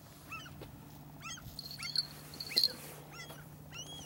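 Bird calling over open water: a string of short, sharp, downward-sliding calls about one every three-quarters of a second, changing near the end to longer calls that rise and fall.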